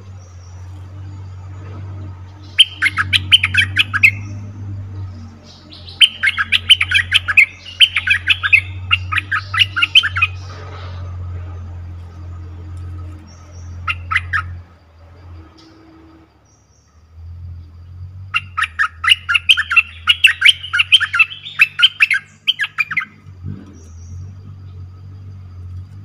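A merbah lekir bulbul, the caged decoy bird, calling in runs of rapid, sharp chattering notes: a short run, a long one of about four seconds, a brief burst, then another long run.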